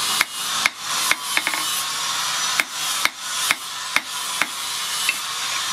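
Hand hammer striking the point of a rebar fishing spear on a small steel anvil: light, sharp blows with a short ring, roughly two a second with a pause of about a second partway through, over a steady hiss.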